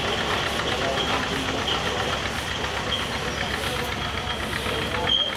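Steam engine powering a sawmill, running steadily with a fast, even beat and a thin high tone over it, while the mill turns over idle with no log being cut.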